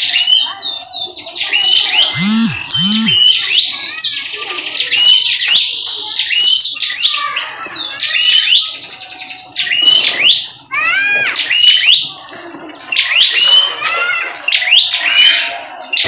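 Prenjak (prinia) singing hard: a rapid, loud run of sharp repeated chirps and sweeping notes with buzzy trills, the continuous singing that bird keepers call gacor. Two short low calls sound about two seconds in.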